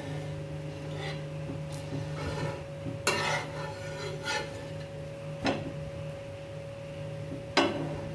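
Steel spatula scraping and clacking against a flat iron tawa griddle as the roat cakes are shifted and laid out, with a few sharp knocks, the loudest about three seconds in and near the end, over a steady hum.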